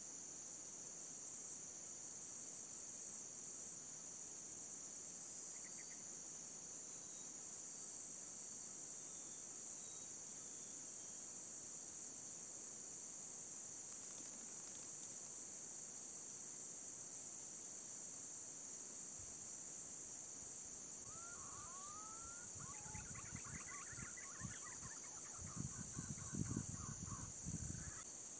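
A steady high-pitched drone of insects, crickets or cicadas. About twenty seconds in, a bird gives a few short whistled, rising notes and then a rapid pulsing call, along with some low thumps near the end.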